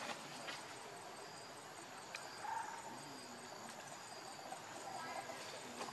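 Faint background of insects chirping, with a few soft clicks.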